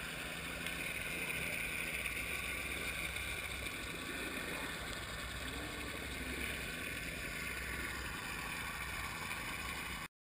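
Steady underwater rushing noise picked up through a camera's waterproof housing, cutting off suddenly near the end.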